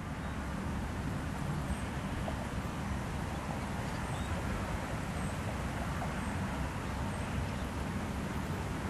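Steady low rumble and hiss of outdoor background noise, with a few faint, short high chirps scattered through it.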